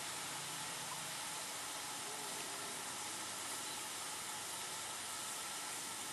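Live-steam miniature locomotive standing still, giving off a steady hiss of steam.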